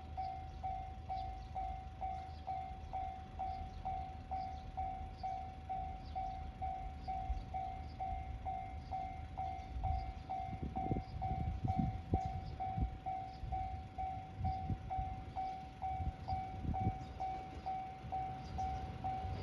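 Japanese level-crossing warning bell ringing, a single tone repeating about twice a second. Under it a train's low rumble grows from about halfway through.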